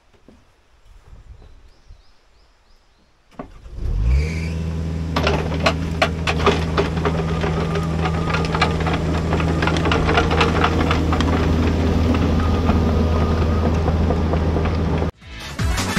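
A diesel engine starts about three and a half seconds in, then runs at a steady low idle with a fine clatter, until the sound cuts off abruptly near the end. Before the start there is only faint outdoor rustling.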